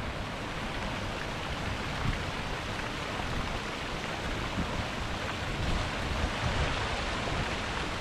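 Creek water rushing steadily over rocks in a small cascade.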